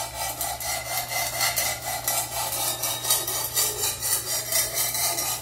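A wet 120-grit diamond plate on a guided sharpener's arm scraping back and forth across the steel edge of a Maestro Wu G-4 fish cleaver in quick, even scrubbing strokes. This is the profiling stage at an 18-degree angle, grinding the edge toward a burr.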